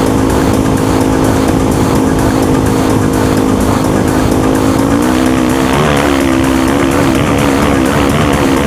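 Engine of an off-road race machine running hard at a steady high pitch, with wind rush over the rider's helmet. About five seconds in, the pitch rises slightly and begins to waver.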